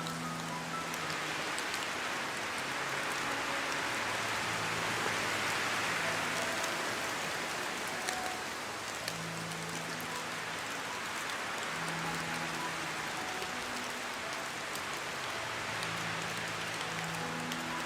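Steady heavy rain pouring down in an even hiss, with faint low held music notes changing every second or two underneath.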